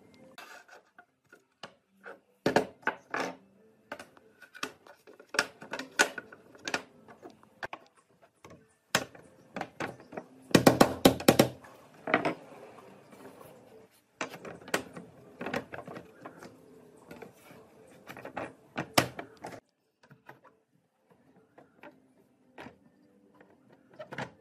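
Notched pine strips clattering and knocking as they are handled and fitted together on a wooden workbench, with a quick run of hammer blows about ten seconds in driving the interlocking strips together, the loudest sound here. More scattered wooden knocks and taps follow.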